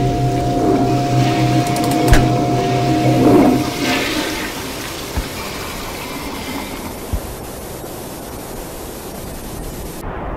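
Toilet flushing, a rush of water that settles into a steady hiss after about four seconds. A steady hum runs under the first four seconds, with a sharp click about two seconds in and two soft thumps later.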